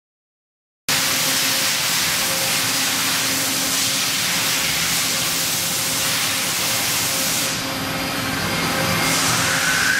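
A 1982 Mitsui-Seiki HR-7A CNC horizontal machining center running under power: a steady hum under a loud, even hiss. It starts suddenly about a second in, after silence.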